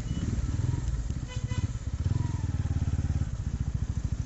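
TVS Ronin's single-cylinder engine running steadily under way, its rapid firing beats blended with wind rumble on the microphone.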